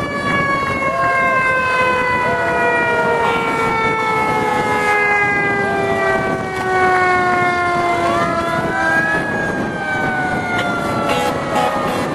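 Fire truck siren wailing, its pitch falling slowly and steadily, then swept up again about eight seconds in and falling once more, over the low rumble of the truck.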